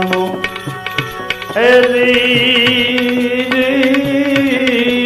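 Gujarati devotional bhajan music: tabla playing a steady rhythm, with a long held melodic note coming in about a second and a half in and lasting to near the end.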